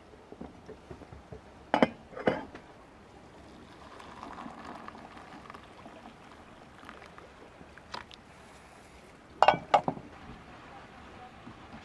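Hot water poured from a small electric pot into a paper cup of instant soup, a soft splashing trickle about four seconds in. Sharp clinks and knocks from handling the pot come twice about two seconds in and twice more near the end.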